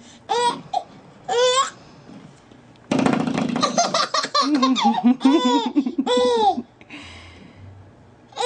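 Baby squealing twice, then a spring doorstop twanging with a fast buzzing rattle about three seconds in, and the baby laughing in high, repeated peals.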